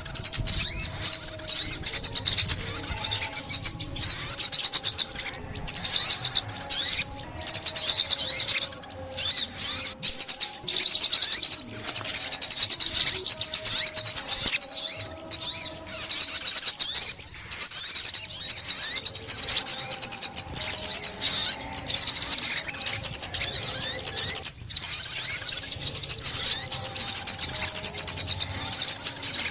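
Song of the bird known in Vietnam as chim ốc mít, a sunbird: rapid, high-pitched twittering chirps running almost without a break, with only short pauses.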